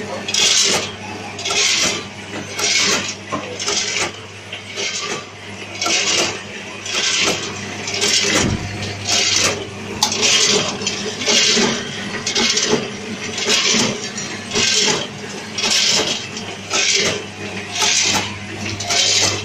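Snack packaging machine running through its repeating cycle: a hissing rush about once a second over a steady low hum.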